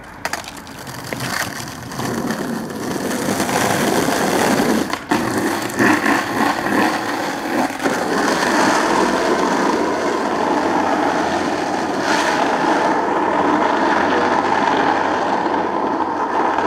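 Skateboard wheels rolling on rough asphalt, a steady rumble that grows louder over the first few seconds as the board gathers speed. A few sharp clacks from the board come along the way.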